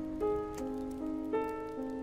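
Background music: a gentle piano-like melody, notes changing about twice a second.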